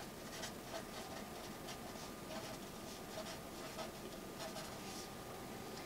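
Marker pen writing on paper: faint, quick scratching strokes of handwriting.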